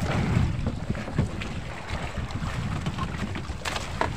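Wind buffeting the microphone and seawater rushing and splashing along the hull of a small outrigger boat under way, with no engine running. A couple of sharp knocks come near the end.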